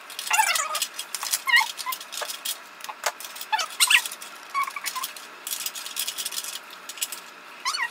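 Paper and craft foam being handled: steady rustling and crinkling with small clicks, broken by a few short, high squeaks that slide down in pitch, as paper pieces are worked into a foam helmet.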